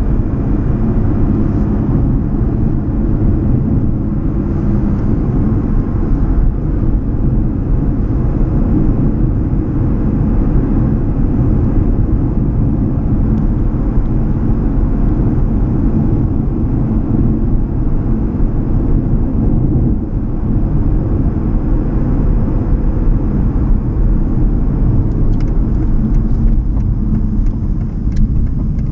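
A 2016 Aston Martin Vantage GTS's V8 engine running at a steady cruise, heard from inside the cabin, mixed with tyre and road noise.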